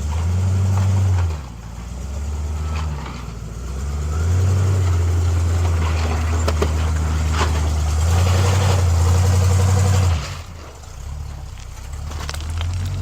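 1973 Chevrolet K20 square-body truck's engine working in low range up a rocky trail, throttle opening and easing in surges, with several sharp cracks of rock under the tyres through the middle. The engine drops back near the end.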